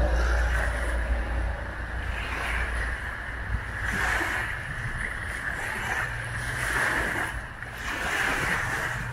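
Small wind-blown waves lapping and washing onto a sandy shore, a fresh wash every one and a half to two seconds. Wind buffets the microphone as a low rumble, strongest in the first second or so.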